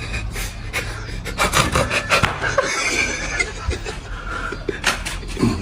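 A jumble of short snorts, pants and stifled laughter from people trying to hold back a sneeze.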